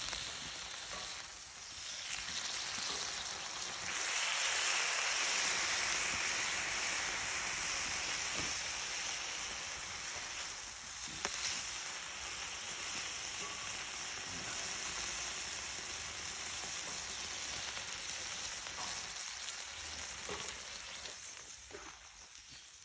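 Food sizzling on a hot barbecue grill over the fire, a steady frying hiss that swells about four seconds in and fades near the end, with a few faint crackles.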